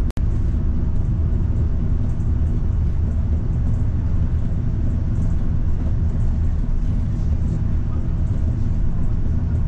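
Route bus under way, heard from inside the cabin: a steady low rumble of engine and road noise. The sound drops out for a split second just after the start.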